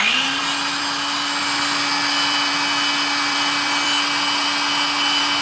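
Dongcheng DCMY185 20V cordless 7-inch circular saw running free with no load at full speed, a steady whine, its blade turning at about 4,300 rpm.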